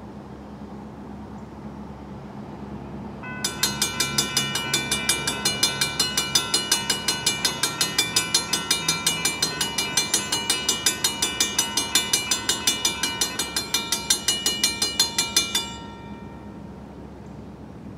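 Railroad crossing bell ringing in rapid, even strokes, starting about three seconds in and cutting off suddenly near the end, the crossing warning activated for an approaching train. A steady low rumble lies underneath.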